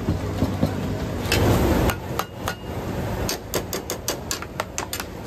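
Sharp repeated knocks of hard strikes: a few scattered ones, then a quick run of about a dozen, roughly six a second, in the second half. A short, louder rush of noise comes about a second and a half in.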